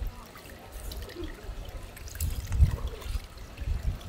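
Water running from a hose and splattering over cut fish pieces and wet pavement, with dull knocks and thumps of handling from about halfway, one thump louder than the rest.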